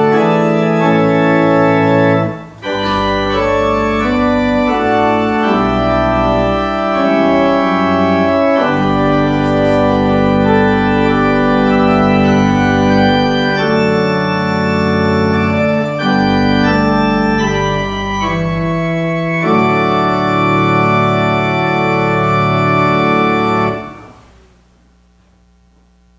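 Church organ playing slow sustained chords over deep bass notes, with a short break about two and a half seconds in. The last chord is released near the end and dies away.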